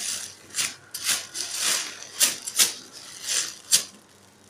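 Clear plastic bag crinkling in short, irregular bursts as a foam squishy inside it is squeezed and handled; the crinkling dies away near the end.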